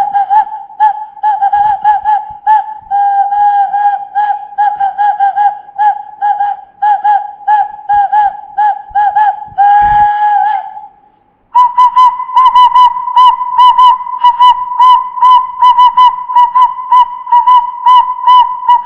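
A person making a warbling, whistle-like sound on one held pitch, broken into quick pulses. It stops briefly about eleven seconds in, then resumes a little higher with the same rapid pulsing.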